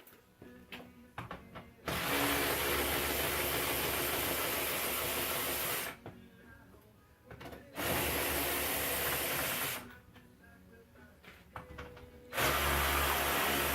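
Handheld power driver spinning bolts out of the truck's front-end section in three runs: about four seconds, then two, then starting again near the end, each starting and stopping abruptly. A few light clicks of handling come before the first run.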